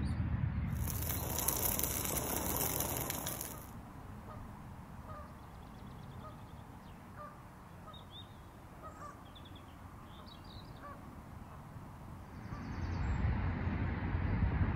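Birds chirping and calling at the lakeside, with short scattered calls over a low outdoor murmur. A rushing hiss, likely wind on the microphone, covers the first three and a half seconds and comes back near the end.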